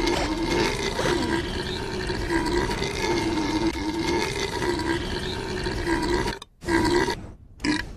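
A long drawn-out belch with a wavering pitch that cuts off suddenly after about six seconds, followed by two short burps.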